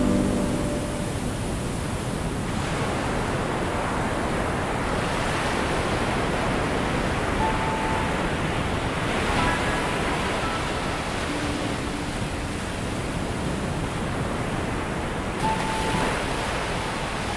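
Ocean surf: a steady rushing of breaking waves that swells and eases every few seconds.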